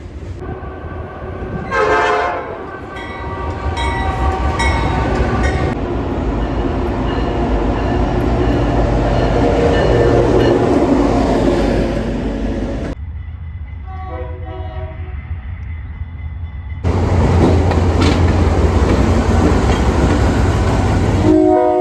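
Diesel locomotive air horns sounded in long and repeated blasts, several notes at once, over the rumble and clatter of a moving train: a horn show played for onlookers. The sound changes abruptly twice as one train gives way to another.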